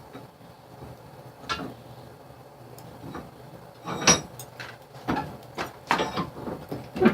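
Irregular metal clanks and knocks of tools and work being handled, about six in all, the loudest about four seconds in and another near the end.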